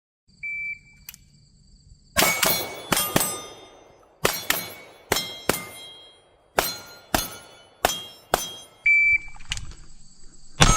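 A shot timer beeps, then pistol shots are fired at steel targets in quick double taps, each hit leaving the steel ringing. A second timer beep comes near the end, and the shooting starts again.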